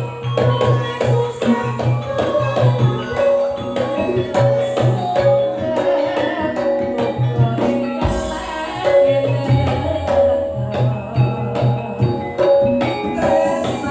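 Campursari music played by the ensemble with no singing: Javanese kendang hand drums beating a busy rhythm under sustained melodic and bass notes.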